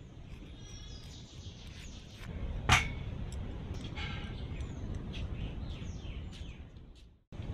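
Birds chirping over a steady outdoor background hum, with one sharp click a little before the middle.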